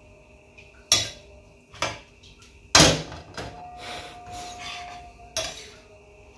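Kitchen utensils and dishes clattering: four sharp metallic clinks and knocks, the loudest about three seconds in, followed by a faint ringing tone.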